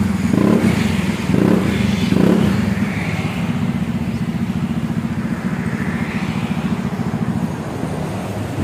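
Honda PCX 160 scooter's single-cylinder engine running through a freshly fitted aftermarket racing exhaust, blipped three times in quick succession in the first couple of seconds, then settling to a steady idle.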